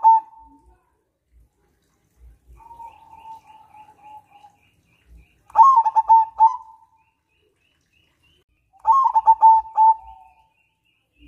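Caged zebra dove (perkutut) cooing: a softer drawn-out coo a few seconds in, then two loud phrases, each a quick run of notes trailing into a held final coo.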